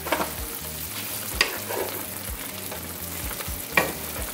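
Chicken pieces simmering in sauce in a nonstick frying pan, a steady bubbling sizzle, with a wooden spoon stirring and knocking sharply against the pan three times.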